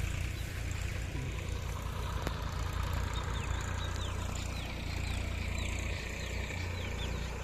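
An engine idling steadily with a low rumble. From about three seconds in, a series of short, high, falling chirps sounds over it.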